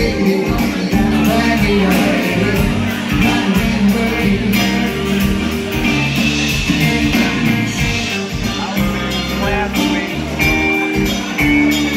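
Live band playing a song: electric and acoustic guitars over a drum kit keeping a steady beat.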